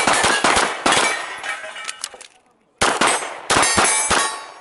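Rapid handgun shots, each with a sharp report and ringing tail, mixed with the clang of steel knock-down targets being hit. The firing pauses briefly about two and a half seconds in, then resumes.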